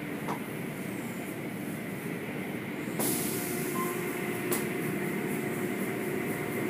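Automatic car wash heard from inside the car: a steady machinery rumble and hum, then about three seconds in a sudden louder hiss as the wet hanging cloth strips and spray reach the car and swish across it. A single sharp click comes a little later.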